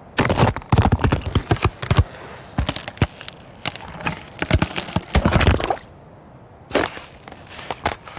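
Ice cracking and breaking: runs of sharp cracks and snaps in irregular clusters. The densest runs come in the first two seconds and again from about four to six seconds in, with a brief quiet gap just after.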